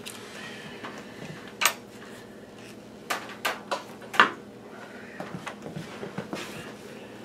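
Small hard objects being handled: a handful of separate sharp clicks and clacks, the loudest about four seconds in, with some light rustling after it.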